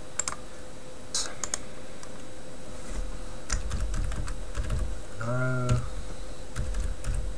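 Computer keyboard typing: a few scattered keystrokes, then a quicker run of keys from about three seconds in.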